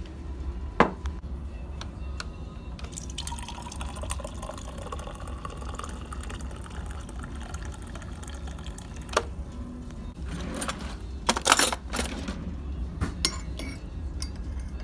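Coffee maker dispensing coffee into a ceramic mug, the pour's pitch rising as the mug fills, with a sharp click before and after. Near the end a metal spoon clinks against the mug while stirring.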